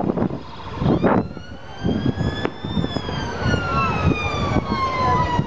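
Emergency-vehicle siren in a slow wail, heard from about a second in: the pitch rises a little, then falls slowly over several seconds. It sounds over the noise of cars driving past close by.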